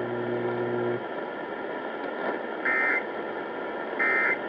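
EAS end-of-message data bursts: two short two-tone digital bursts about a second apart, the SAME code's closing signal after a weather warning, over radio hiss. A steady buzzing tone cuts off about a second in.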